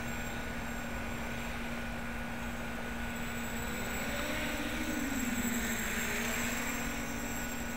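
Electric motors and propellers of a homemade 550-size multirotor drone in flight: a steady hum whose pitch rises and then dips about four to five seconds in as the throttle changes.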